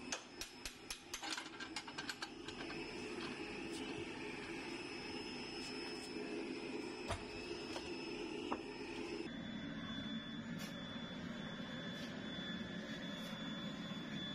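Foundry sand mixer running steadily while moulding sand is raked and spills out from under its trough, with a quick series of sharp clicks and knocks in the first two seconds. The machine's tone shifts about nine seconds in.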